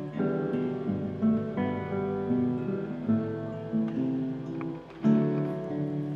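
Solo classical nylon-string guitar playing plucked melody notes over ringing chords, with sharper accented chords about one, three and five seconds in.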